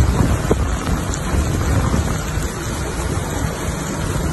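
Steady wind and rain, with wind rumbling on the microphone.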